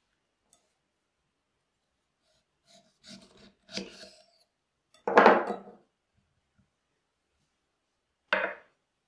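A kitchen knife cutting through a lime on a wooden cutting board: faint cutting and scraping about three seconds in, then a loud knock on the board about five seconds in, and another short knock on the board near the end.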